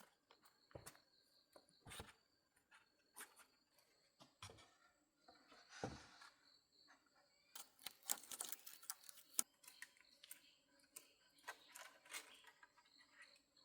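Faint, scattered light clicks and knocks, with a short flurry of scratchy, scraping sounds about eight seconds in.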